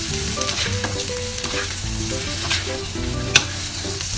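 Snow peas and green pepper stir-fried with sliced cured pork in hot oil in a wok, sizzling steadily, with a few sharp knocks of the spatula against the wok as the food is tossed.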